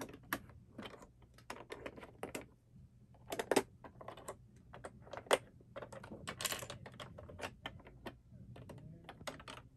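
Small plastic key turning in the locks of a Monster High Skulltimate Secrets toy locker, with its little plastic doors clicking open: a run of irregular plastic clicks and taps, the sharpest about three and a half and five seconds in.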